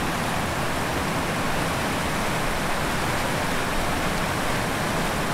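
The Mangfall river rushing over a shallow rocky riffle of white-water rapids: a steady, loud rush of water.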